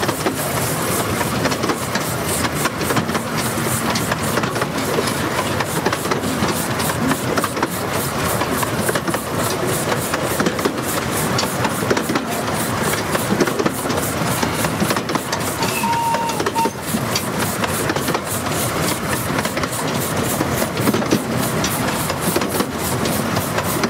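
15-inch gauge miniature steam locomotive and its carriages running along the line, heard from just behind the engine: a steady rapid beat of sharp ticks as the train clatters over the track, with steam hissing from low down at the cylinders.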